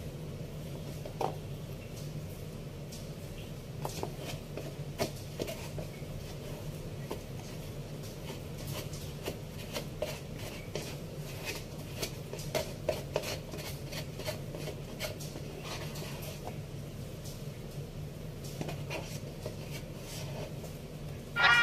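Faint, irregular clicks and light handling noises of hands putting together a white-bread sandwich, over a steady low hum of room tone. Music starts just before the end.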